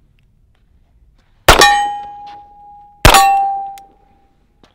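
Two .45 1911 pistol shots about a second and a half apart, each followed by the ringing of a struck steel target.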